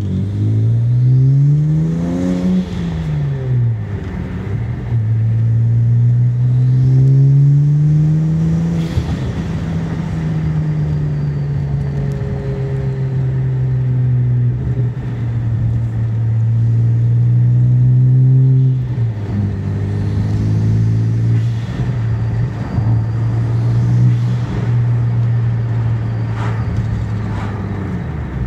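BMW 335i's N54 twin-turbo inline-six heard from inside the cabin under way. The engine note rises as the car accelerates and drops sharply about two and a half seconds in. It climbs again, then holds fairly steady, and falls once more at an upshift near nineteen seconds before settling into a lower, steady cruise.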